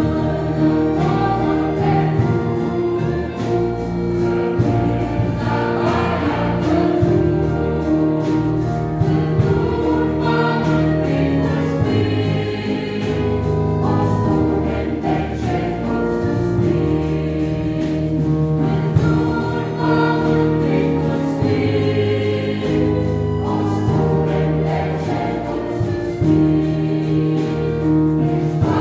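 A choir sings a hymn in Romanian, accompanied by a church orchestra of violins and other strings with a French horn, playing steadily throughout.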